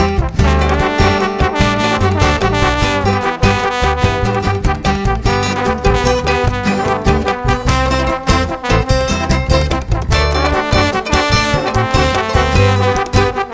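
Music with a pulsing bass beat playing loudly through a repaired KDM tower home theatre's speakers during a sound test, coming through cleanly with no hum now that a shorted amplifier IC has been replaced.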